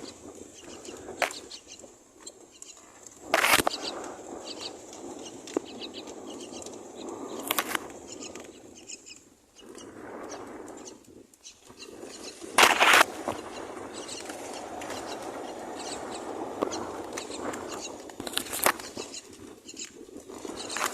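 Common myna chicks making short, rapid calls at the nest, broken four times by a sudden loud flutter.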